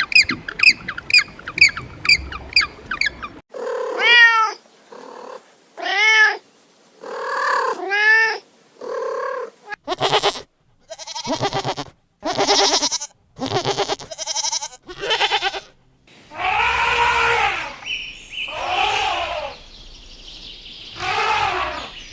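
A domestic cat meowing over and over, each call rising and falling in pitch, with longer drawn-out yowls near the end. For the first three seconds or so a rapid run of short bird squawks is heard before the cat starts.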